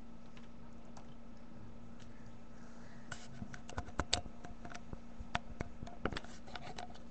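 Quick, irregular clicks and taps for about four seconds, starting about three seconds in, over a steady low electrical hum.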